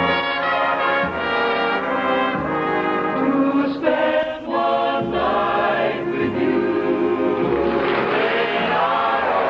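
Studio orchestra led by brass starting abruptly with a loud passage, chords changing about once a second, with a mixed choir singing along.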